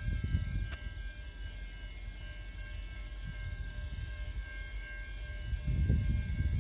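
Train running: a steady low rumble that swells about a second in and again near the end, with a steady high-pitched whine over it.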